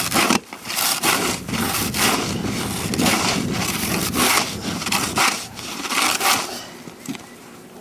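Snow shovel chopping and scraping into deep snow in quick repeated strokes, about two a second, breaking the snow up so it is easier to push. The strokes stop about a second before the end.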